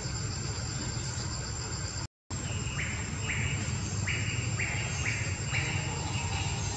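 Insects calling outdoors: a steady high-pitched whine with repeated short buzzy pulses, each about half a second long, over a low background rumble. The sound cuts out briefly about two seconds in.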